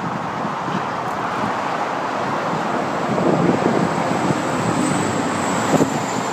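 Steady rush of multi-lane highway traffic passing below.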